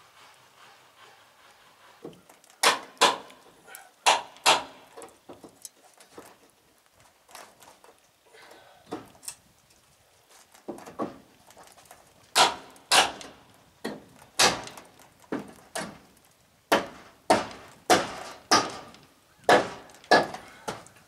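A series of sharp clicks and knocks starting about two seconds in, many coming in pairs about half a second apart.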